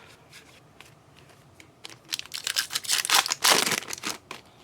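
Foil trading card pack wrapper crinkling and tearing as it is opened: a quiet start, then a run of crackles about two seconds in, loudest near the end.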